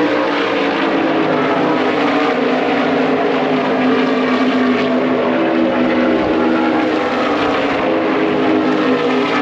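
NASCAR stock cars' V8 engines running at speed around the speedway, a loud steady drone whose pitch wavers slightly.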